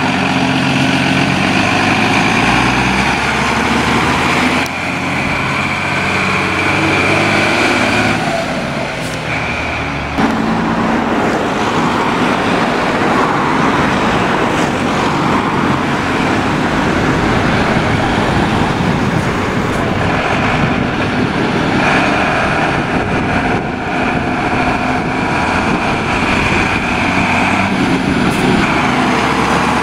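A convoy of Mercedes-Benz fire engines driving past one after another. The diesel engine of the first truck runs close and clear for about the first ten seconds, then gives way to the steady rumble of the following trucks going by.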